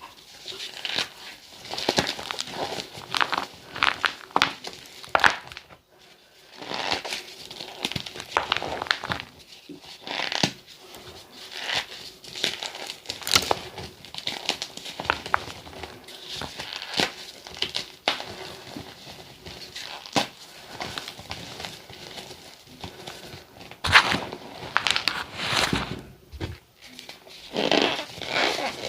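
Gym chalk mixed with sand being crushed and crumbled, giving a continuous run of crisp, irregular crunches and crackles, with a short pause about six seconds in.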